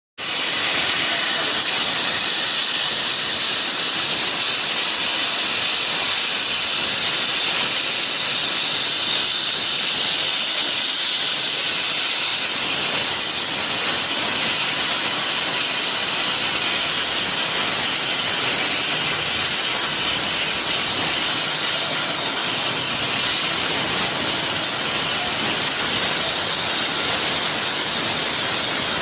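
Plasma cutter torch cutting metal: a steady hiss of the arc and its compressed air jet, strongest in the high register and unbroken.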